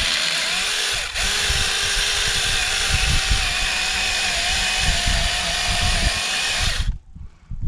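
Small chainsaw running steadily as it cuts into a pumpkin, with a brief dip about a second in. It shuts off suddenly near the end.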